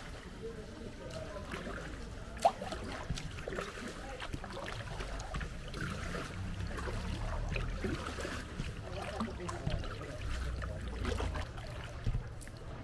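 Kayak paddling on a canal: water trickling and splashing off the paddle blades, with small clicks and knocks against a low background rumble. One sharp knock about two and a half seconds in.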